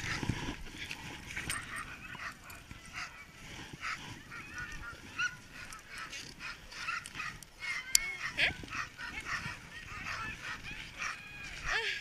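A yard of harnessed Alaskan husky sled dogs yelping and whining, many short high-pitched calls overlapping without a break, with one sharp click about two-thirds of the way through.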